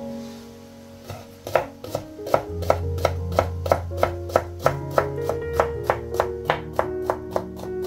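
Music with held notes and a steady run of sharp clicks, about three to four a second, starting about a second and a half in.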